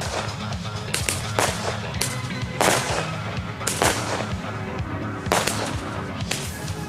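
Music playing with a steady low accompaniment, over which come about half a dozen short, sharp noisy bursts at irregular intervals.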